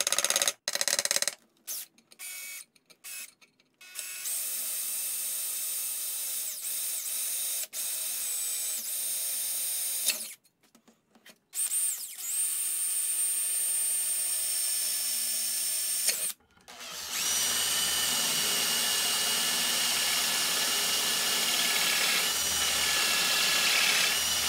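Cordless drill with a 1/8-inch bit drilling pilot holes into a scroll saw's metal deck. A few short trigger pulls come first, then three longer steady runs of the motor with a high whine, stopping briefly between them.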